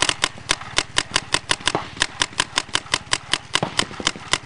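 Paintball marker firing a steady rapid string of shots, about five or six a second, over a steady low rumble.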